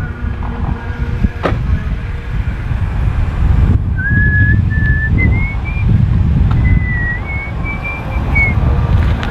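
A person whistling a short tune in two phrases about four seconds in, the pitch stepping upward, over a steady low rumble of traffic and wind noise.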